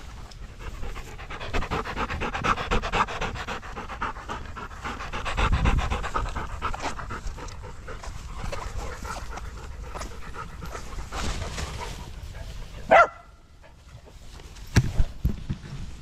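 A dog panting in a quick, steady rhythm, with one short, loud, high-pitched sound that rises in pitch about thirteen seconds in and a few sharp knocks near the end.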